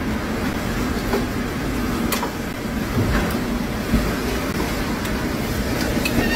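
Tornado wind blowing hard: a steady, dense rushing rumble, with a few faint sharp clicks through it.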